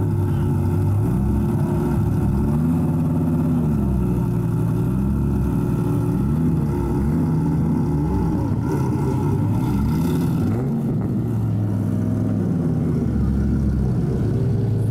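Devon GTX's modified Dodge Viper V10 running at low speed, its note rising and falling again and again as the car is driven off slowly.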